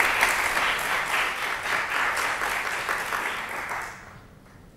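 Audience applauding, with many hands clapping, dying away about four seconds in.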